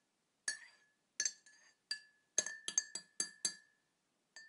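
A spoon clinking against a cup, like tea being stirred. A few spaced clinks come first, then a quicker run of about five around the middle, each ringing briefly at the same pitch.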